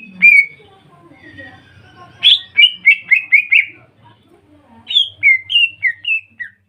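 Greater green leafbirds (cucak ijo) singing in a group, in three quick runs of clear whistled notes that each slide down in pitch.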